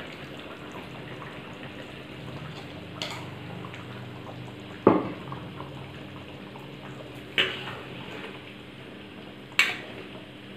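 Curry cooking in a wok on a portable gas stove, a steady low hiss, broken four times by sharp clinks of a metal ladle or utensil against the wok, the loudest about five seconds in.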